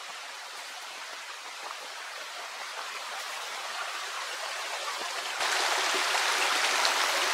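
Shallow mountain stream running over rocks: a steady rush of water that grows louder, jumping up suddenly about five and a half seconds in.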